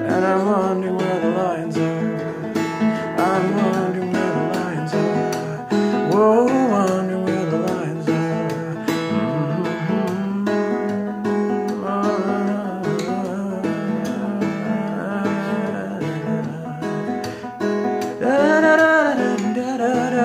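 A 1967 Martin 0-18 acoustic guitar in drop D tuning with a capo at the second fret, played steadily in a folk accompaniment, with a voice singing along without clear words in a few places.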